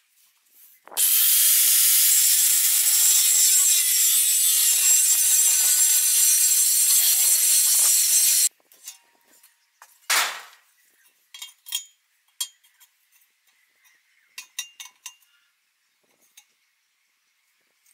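Angle grinder with a cutting disc cutting into a steel plate, starting about a second in and cutting off suddenly after about seven and a half seconds. After it come one short loud burst and scattered light clicks and clinks.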